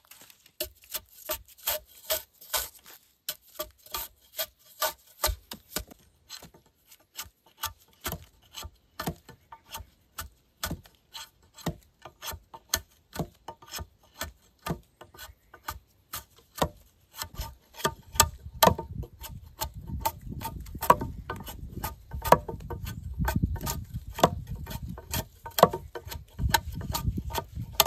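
A hand tool working wood in quick, even back-and-forth strokes, about two to three a second, as when sawing, rasping or planing a board. A low rumble joins underneath a little past halfway.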